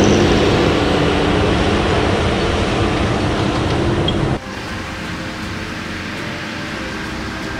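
John Deere tractor running in the field as it pulls a disc harrow, a loud, steady engine and machinery noise. About four seconds in it cuts off abruptly, and quieter background music with held tones follows.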